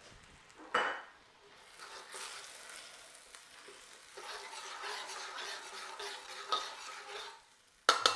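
A metal spatula stirring and scraping through coconut-milk curry simmering and sizzling in a wok. A sharp clink of metal on the wok comes about a second in, and a louder one near the end.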